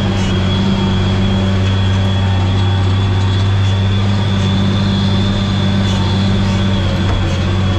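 Tractor engine running steadily under load while pulling a harrow, heard from inside the cab, with a deep even hum and a steady high whine above it.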